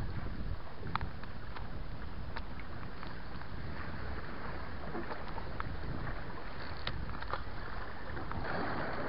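Steady wind rumbling on the microphone over water washing against jetty rocks, with a few faint clicks.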